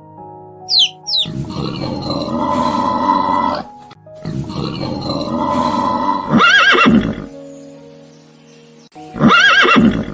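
A horse neighing: three long calls, the second and third ending in a shaky, quavering whinny. Background music plays throughout, with a short bird chirp at the start.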